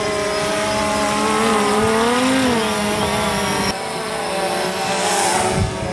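DJI Phantom 3 quadcopter's propellers buzzing in flight, the pitch wavering up and down as the motors speed up and slow down to hold and move the drone. The motors are running normally despite earlier hail and water damage.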